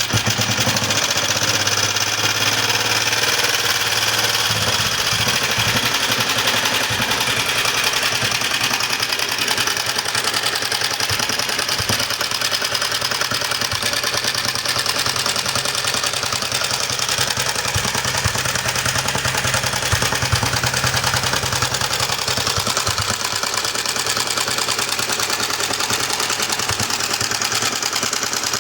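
1961 Matchless G3 motorcycle's single-cylinder four-stroke engine running steadily after firing up, with an even beat.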